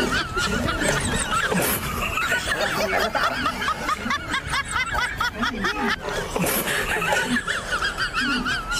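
Dubbed-in comic sound effect: a string of high, quickly wavering squeals, like giggling, repeating throughout without words.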